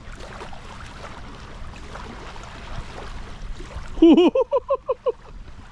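Steady rushing and gurgling of water at the lake's edge. About four seconds in, a person's voice cuts in with a quick run of about six short, rising-and-falling syllables, the loudest sound here.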